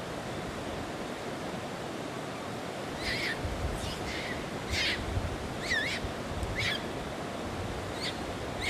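Juvenile Japanese macaque giving short, high squeaky calls, about seven in the last six seconds, each bending in pitch. They sit over a steady rushing background noise, with occasional low rumbles.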